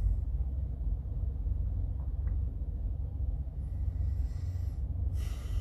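Steady low rumble of a semi-truck running, heard from inside the cab.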